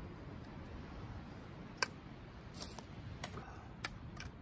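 A utensil clicking and tapping against a metal camping pot while noodles are stirred: about six sharp, short ticks, starting a little under two seconds in, over a low steady background hiss.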